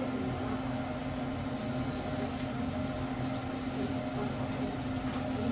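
Steady low machine hum, with faint soft rustles over it.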